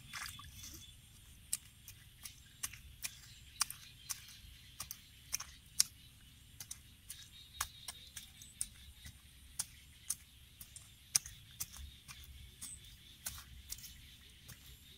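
Wooden digging pole jabbing into wet, muddy soil: short, sharp knocks at an uneven pace, roughly one or two a second, over a faint steady high hiss.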